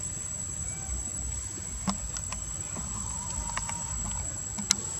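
Steady high-pitched insect chirring, like crickets, with a few sharp clicks about two seconds in and near the end over a low rumble.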